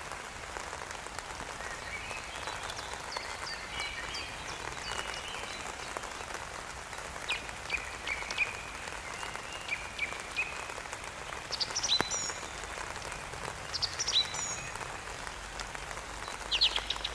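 Steady rain falling with birds singing over it: short, high chirps and quick trills, several birds calling repeatedly, louder in the second half.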